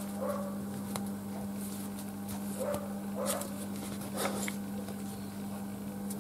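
Paper sewing pattern rustling and sliding softly over stretch fabric as it is shifted into place by hand, in a few short handling sounds over a steady low hum.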